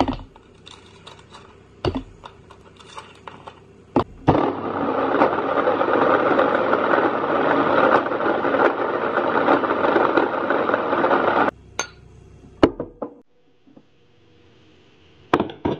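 Electric blender running for about seven seconds, pureeing frozen strawberries and ice into juice, starting about four seconds in and cutting off abruptly. A few light clicks and knocks come before it, and a couple of sharp knocks or clinks come near the end.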